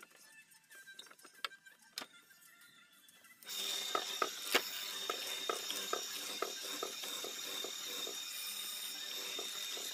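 Drill press boring into a wooden beam. A few clicks from the vise being wound tight come first. About a third of the way in the motor starts suddenly and runs with a steady high whine and a regular ticking about three times a second.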